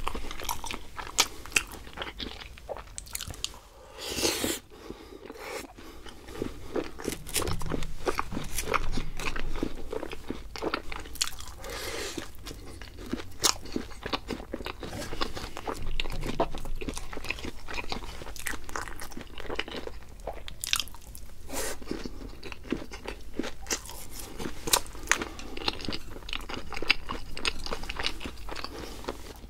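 A person biting and chewing crunchy fried food close to the microphone: a dense run of sharp crunches.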